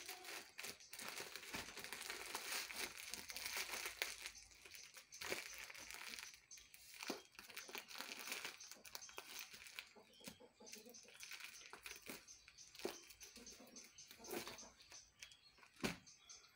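Clear polythene bag packed with chopped straw crinkling and rustling as its neck is twisted and tied by hand and the bag is handled. The rustle is busiest in the first half and thins to scattered crackles later.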